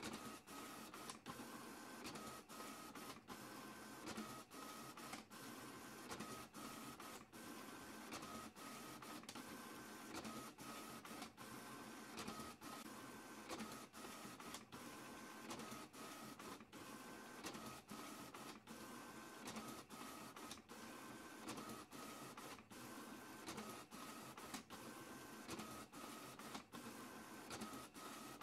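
Printer running through a print job, a steady mechanical whir of its feed and print mechanism, with a faint high tone that switches on and off every second or so and many brief pauses.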